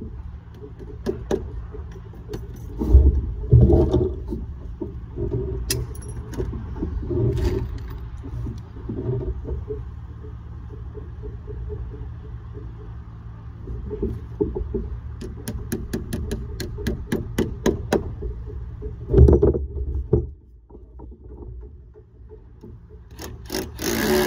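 Handling noises from work on lead capping: scraping, light metallic clinks and irregular knocks over a low rumble, with heavier thuds about three seconds in and again near nineteen seconds.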